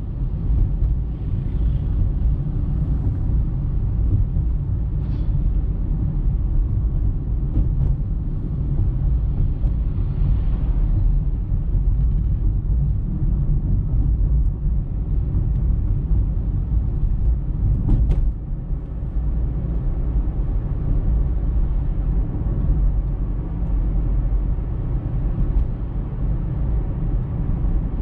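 Steady low rumble of a car being driven, road and engine noise heard inside the car's cabin, with a single sharp click about eighteen seconds in.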